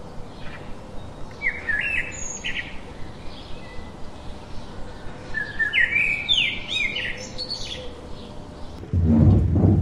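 Songbirds singing in two bursts of quick chirping phrases, one about a second and a half in and another around six seconds in. A short low rumble comes near the end.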